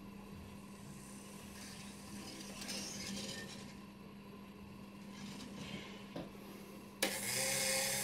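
Faint clicks and handling noises over a steady low hum. About seven seconds in, an electric model-railway turntable's drive switches on and runs with a steady mechanical noise.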